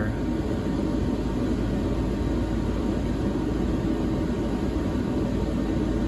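Cooling fans of EG4 6500EX-48 hybrid inverters running in standby mode, a steady low whirr.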